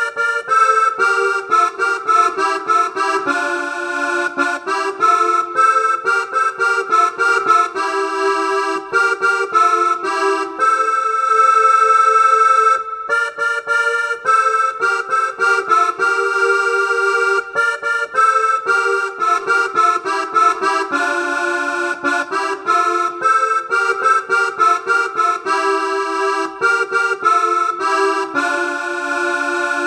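Yamaha PSR-S670 arranger keyboard playing a melody in an accordion voice over sustained chords, note after note.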